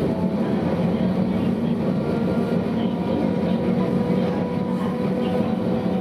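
Sapporo type 240 streetcar running along the line, heard from the cab: a steady rumble of wheels and running gear with a faint steady whine.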